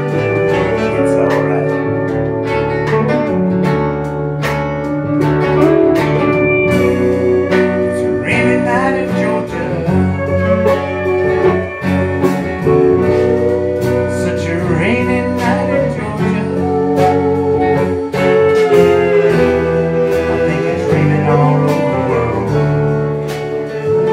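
Live band playing a slow ballad: hollow-body and electric guitars, pedal steel guitar, upright bass and drums, with sustained steel-guitar lines over a steady beat.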